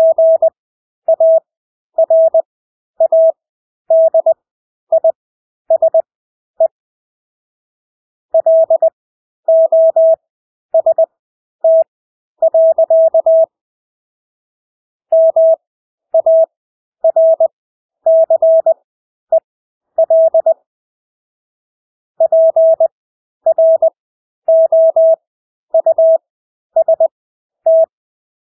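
Morse code (CW) practice tone sent at 20 words per minute with Farnsworth spacing: a single steady mid-pitched beep keyed on and off in dots and dashes, with wide gaps between characters and three longer pauses between words.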